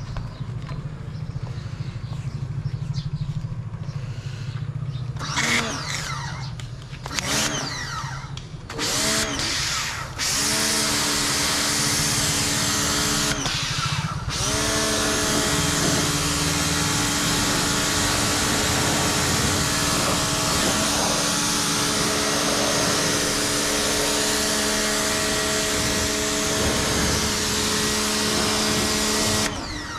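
Ingco 1400W electric pressure washer: its motor spins up and down in several short bursts as the trigger is pulled, then runs steadily, humming under the loud hiss of the water jet. It cuts out briefly about halfway through and stops abruptly just before the end.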